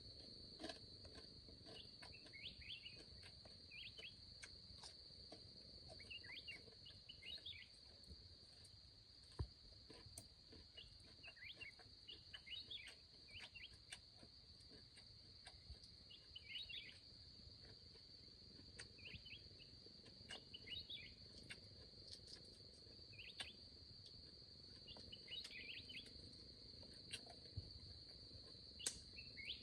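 Faint forest ambience: a steady high insect drone, like crickets or cicadas, with short bird chirps every second or two and a few soft clicks.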